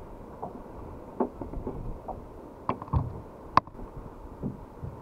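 Scattered knocks and clicks of handling in a kayak while a small porgy is unhooked, with one sharper click about three and a half seconds in.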